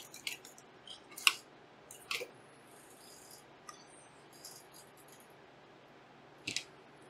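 Sparse clicks and light metal taps of a screwdriver and small screws while a graphics card is taken apart. The loudest tap comes about a second in, with a few fainter ones after it.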